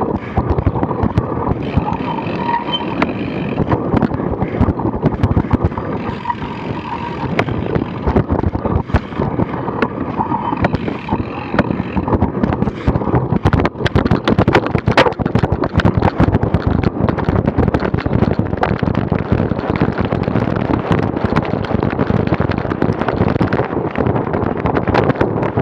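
Wind buffeting a bike-mounted action camera's microphone while a cyclocross bike rattles and knocks over rough ground. The knocks grow denser about halfway through.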